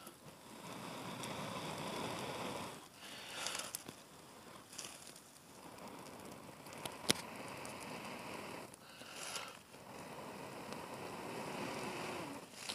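A person blowing long, steady breaths into a smouldering birch-bark and char-cloth tinder bundle to coax a flint-and-steel ember into flame: three long blows with quick breaths drawn in between, and one sharp crackle from the tinder about seven seconds in.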